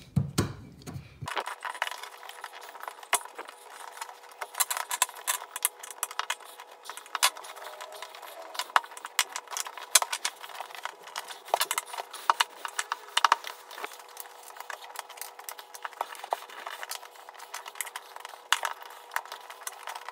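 Screwdriver clicking and scraping against a plastic shower drain as a rubber drain gasket is pried and pushed into place around the pipe: a long, irregular run of small clicks and rattles.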